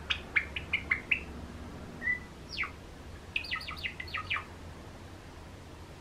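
Cream Java sparrow singing its usual rhythmic song: a quick run of short, sharp chip notes, a single note and a steeply falling note about two and a half seconds in, then another fast run of chips, falling silent a little after halfway.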